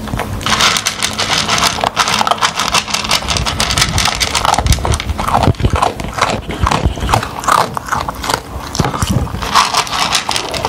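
A dog eating dry kibble from a bowl: rapid, irregular crunching and chewing throughout.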